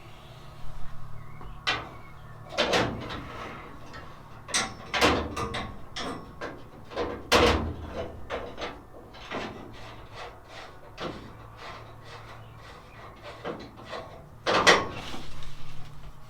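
Irregular knocks and clanks of steel parts and tools being handled, as a length of 10mm stud is fitted through a seatbelt mounting and a jack set up to push a Classic Mini's floor panel up into position. A few of the knocks, about 3 s in, 7 s in and near the end, are louder and longer.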